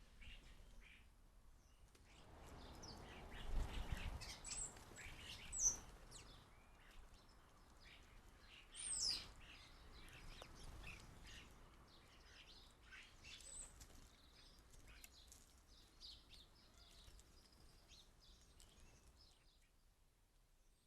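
Small garden birds chirping and calling in short, scattered notes, with one clear falling whistle about nine seconds in. A low rumble swells and fades in the first few seconds.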